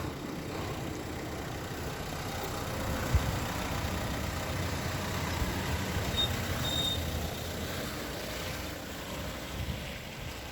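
Renault Kangoo dCi 90 driving, steady engine and road noise, with a brief faint high-pitched squeak about two thirds of the way in. The squeak has been there almost since the van was new; a Renault dealer technician calls it normal for these vehicles.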